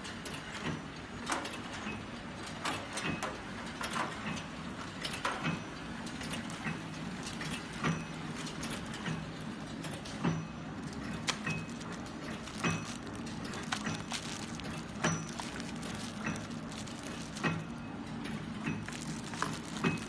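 Servo flow-wrapping (pillow-pack) machine and its infeed conveyor running, a steady mechanical hum with frequent clicks and clacks about once a second.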